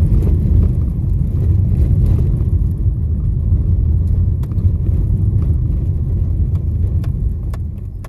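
Car driving over a rough, potholed dirt road, heard from inside the cabin: a steady low rumble of engine and tyres, with scattered light clicks and knocks.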